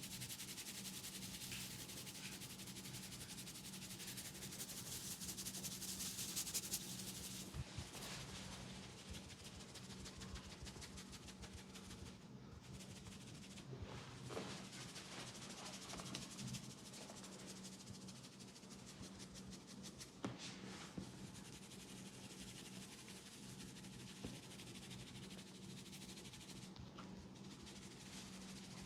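Hands rubbing and massaging hair and skin during a head massage: a fast, dense rustling friction for the first seven seconds or so, then softer rubbing broken by a few sharp clicks, over a steady low hum.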